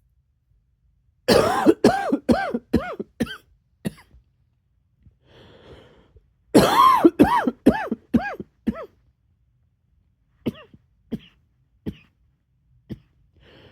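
Two fits of coughing, each a quick run of six or seven harsh, voiced coughs, then a few single coughs spaced out. A faint raspy in-breath comes between the fits and again near the end.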